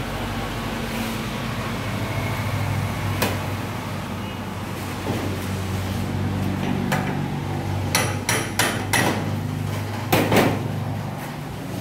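Sharp metal-on-metal hammer taps on the housing of an Isuzu 4BC1 diesel injection pump held in a vise as it is knocked apart: a few single taps, then a quick run of four, then the loudest pair near the end. A steady low hum runs underneath.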